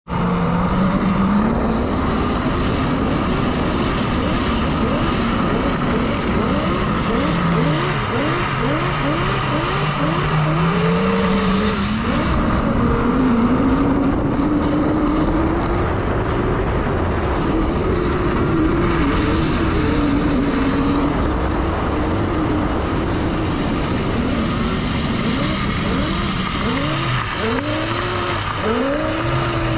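A 72 V, 3000 W electric drift trike being ridden: the motor whine glides up and down in pitch as it speeds up and slows down, with short repeated swoops. Under it runs a steady rush of wind and road noise.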